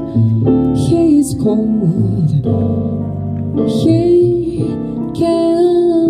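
Live jazz: a female vocalist sings long held notes with vibrato, backed by stage keyboard, double bass and guitar.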